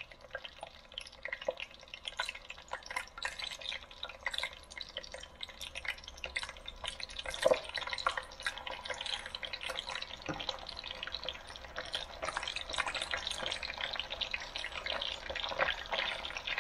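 Catfish, wet from a water-based spice marinade, deep-frying in hot oil in a wok: dense crackling and spattering that grows a little louder, with one louder pop about seven and a half seconds in.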